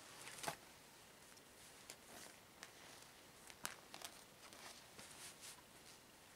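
Faint rustling and rubbing of long rubber gloves being handled and pulled on, with soft swishes and a few short clicks and snaps, the loudest about half a second in.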